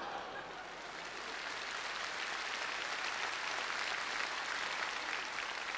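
Studio audience applauding steadily after a punchline.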